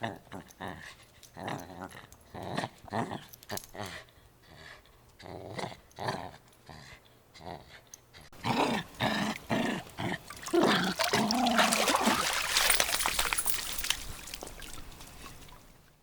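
Dog growling in a string of short growls, turning louder and more continuous about halfway through.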